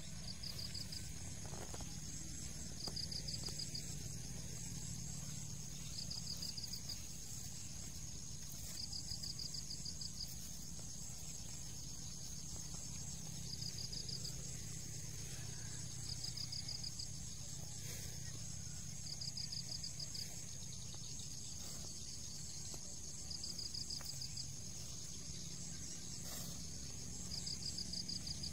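Insect chorus: a steady high shrill with a pulsed trill about a second long coming back every few seconds, over a faint low rumble.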